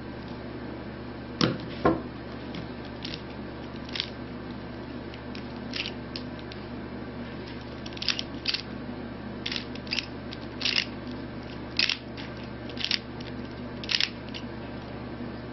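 Rubik's Cube being solved by hand: the plastic layers turning in short, irregular clicks and rasps that come more thickly in the second half, with two louder knocks about a second and a half in.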